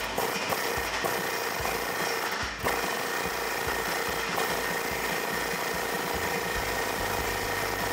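Air-powered wrench running steadily as it loosens a 14 mm bolt on an exhaust flange, with a short break about two and a half seconds in.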